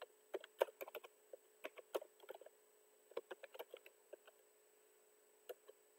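Typing on a computer keyboard: quick, irregular keystrokes, dense for the first few seconds, then a pause with a couple of last taps near the end.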